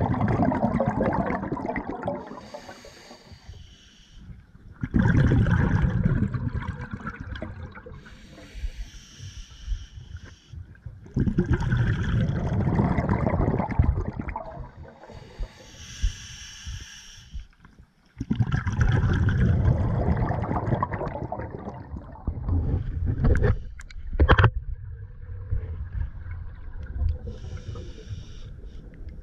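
Scuba diver breathing through a regulator underwater: four long bursts of exhaled bubbles, each followed by a shorter hiss as the regulator delivers the next breath, in a steady cycle of about six seconds.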